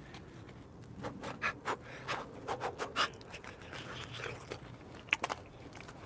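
A person chewing a bite of deep-fried pizza: irregular small crunches and scrapes, with a sharp click about five seconds in.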